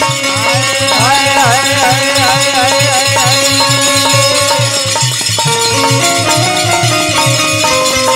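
Dholak drumming a steady teentaal (sixteen-beat) rhythm under a repeating lahara melody, with small hand cymbals jingling. About half a second in, a wavering, bending melody line enters and fades out about three and a half seconds in.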